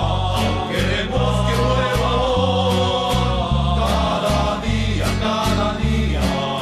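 Rondalla music: several acoustic guitars strumming a steady beat under a melody line and moving bass notes.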